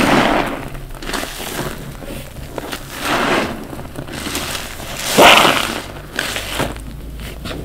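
Foam-soaked bath sponges squeezed by gloved hands in sudsy water: wet squelching and crackling of foam as liquid is pressed out. It comes in several squeezes, the loudest about five seconds in.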